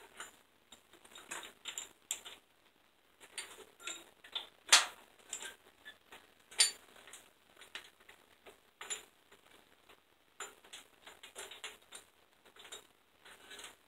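Hand tools clicking and clinking against the rocker-arm hardware on the cylinder head of a small-block V8: irregular clusters of light metallic ticks, with two sharper clacks a little before the middle.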